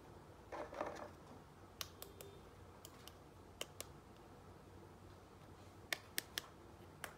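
Small hard-plastic toy pieces clicking and tapping as a toy vanity mirror is handled and fitted to its stand: a series of sharp separate clicks, several in quick pairs, after a brief rustle about half a second in.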